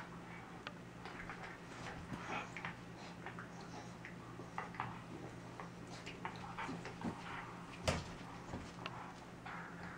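Two small dogs play-wrestling: scattered light clicks and scuffling as they tussle and paw at each other, with one sharper knock about eight seconds in, over a faint steady low hum.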